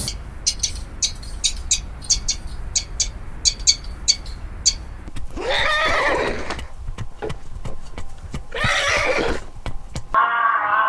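Horse whinnying twice, each neigh about a second long and falling in pitch, after a run of sharp, quick clicks. Just before the end a different steady pitched sound cuts in abruptly.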